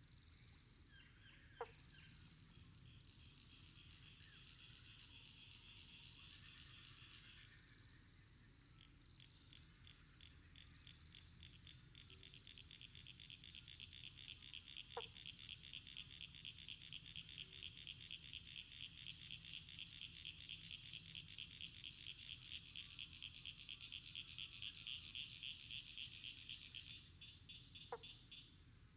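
Faint evening animal chorus: a high, rapid pulsed trill that starts a moment in, breaks off briefly about a quarter of the way through, then resumes and swells louder before stopping near the end. A softer short high note repeats about once a second, and three brief sharp plinks come at the start, the middle and the end.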